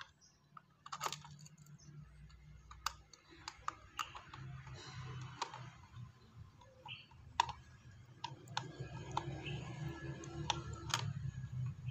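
Small hand screwdriver turning a screw into a plastic toy boat: irregular light clicks and ticks of the tool and plastic parts being handled, over a faint low hum.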